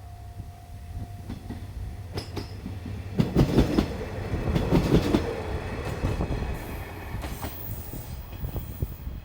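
Wheels of a JR Shikoku diesel train clacking over rail joints as it passes, over a steady low rumble; the clacks are loudest about three to five seconds in and thin out after.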